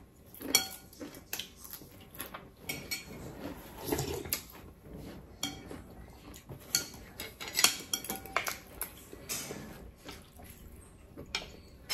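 Metal spoons clinking and scraping against ceramic bowls of mushroom porridge: a string of irregular sharp clinks, a few of them ringing briefly.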